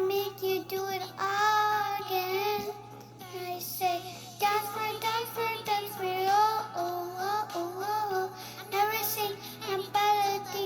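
A young girl singing solo, a melody in held phrases with short breaths between.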